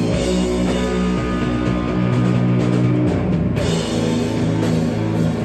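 Rock band playing live: heavy, sustained bass and guitar notes over a drum kit, loud and dense.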